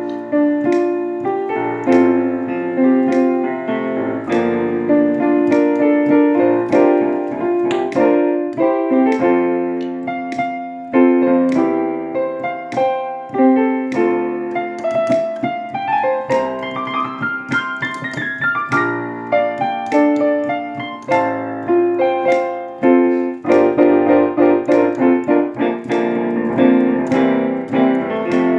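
Keyboard piano playing a slow worship accompaniment alone: sustained chords with a rising run of notes about halfway through.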